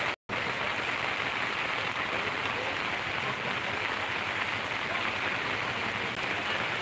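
Heavy rain falling steadily on a paved road, an even hiss without a break except for a moment's dropout just after the start.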